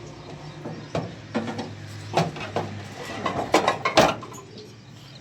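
Metal tools and parts clanking as they are handled, a run of irregular knocks that comes faster toward the middle, the loudest about four seconds in.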